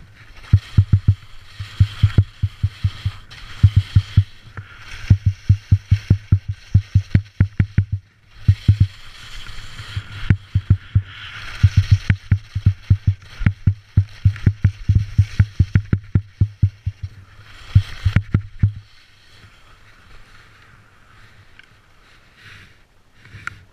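Skis chattering and scraping on hard-packed snow during a descent: rapid trains of short low knocks with a scraping hiss that swells and fades. The sliding stops about three quarters of the way in, leaving a faint steady background.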